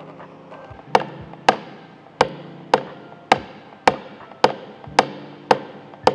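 Sharp metal taps, about two a second, each with a short ring, starting about a second in: a hammer tapping down a dent in a stainless steel refrigerator door panel during paintless dent repair. Faint background music runs underneath.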